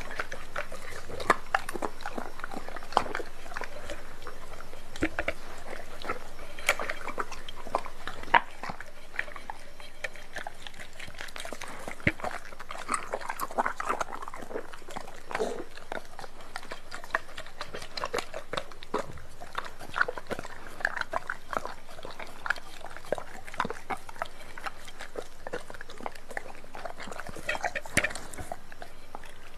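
Doberman pinscher eating raw meat off a plate: many irregular sharp crunches and clicks of biting and chewing.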